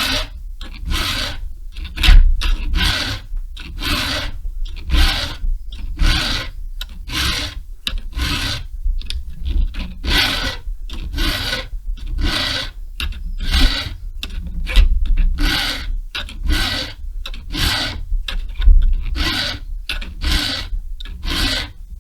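Hand file rasping across chainsaw chain cutters in steady, even strokes, about one to two a second: the cutters being sharpened to a shorter, milling angle.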